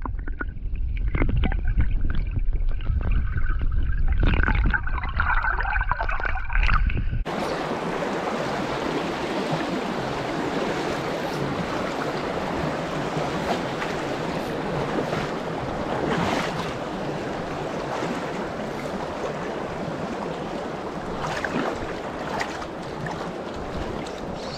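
Flowing creek water heard through a camera held underwater: a muffled, low rumble with knocks and bubbling. About seven seconds in it cuts abruptly to the steady, even rush of the shallow creek heard above the water.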